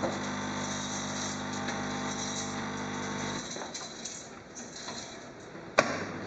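Jura automatic coffee machine's pump humming steadily while coffee pours into the cup, cutting off about halfway through as brewing ends. The last coffee dribbles, then a single sharp click near the end.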